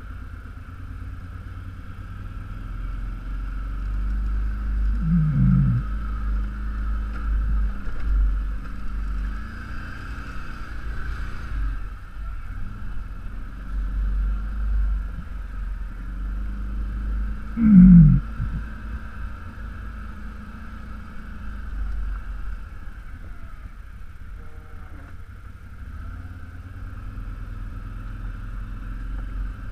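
ATV engine running at low trail speed, a low rumble with a steady higher hum over it. Two short falling swoops cut through it, the louder one about eighteen seconds in.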